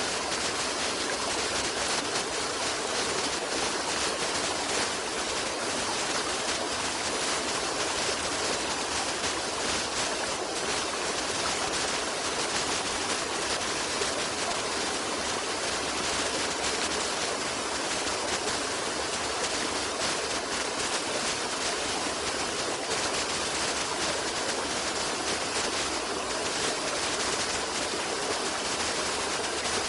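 Steady rushing of flowing water, like a stream, an even noise that does not change.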